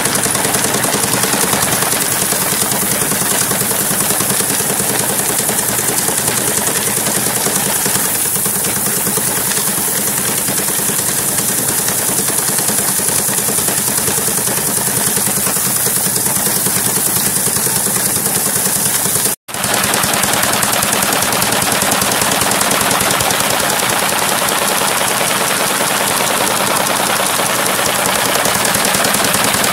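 Homemade wooden threshing machine running, its electric-motor-driven cylinder spinning rubber-mat flails with a loud, rapid, steady rattle as grain heads are threshed. The sound breaks off for an instant about two-thirds through.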